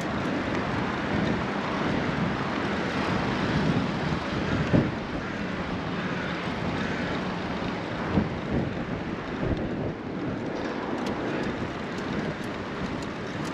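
Wind blowing across the GoPro's microphone on a moving bike: a steady rushing noise.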